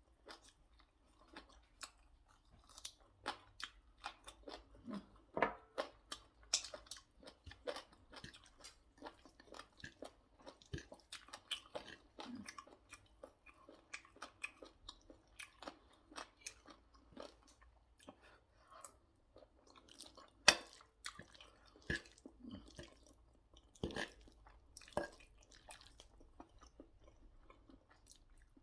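Close-up eating sounds: a person biting and chewing fried chicken wings and pasta, with irregular crisp crunches and wet mouth clicks, one sharper crunch about two-thirds of the way through.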